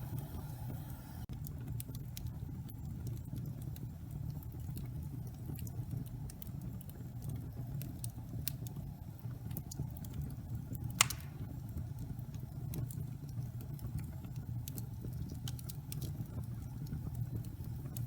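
Wood logs burning in a fireplace: a steady low rumble of the fire with scattered small crackles, and one loud sharp pop a little past the middle.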